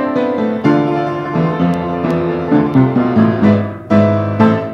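Background piano music: a lively tune of struck notes over a moving bass line.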